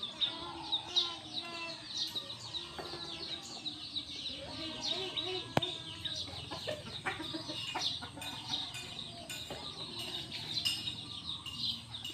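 Chickens clucking under a continuous stream of short, high, falling chirps, with one sharp click about halfway through.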